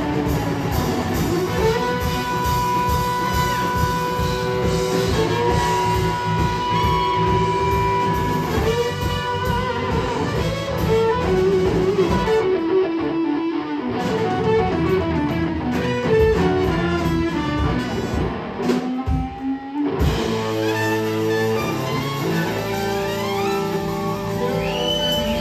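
Live blues-rock band playing: electric guitar over bass and drums with long held notes. The bass and drums stop twice for short breaks before the full band comes back in.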